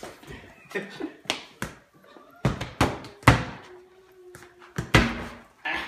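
Soccer ball being kicked around a tiled kitchen: a string of sharp thuds and knocks as it is struck and bounces off the floor and cabinets, the loudest a little past three seconds in.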